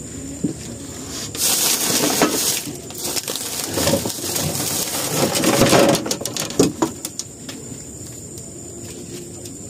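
Handling noise close to the microphone: rubbing and scraping with scattered knocks and clicks, loudest in the middle and easing off near the end.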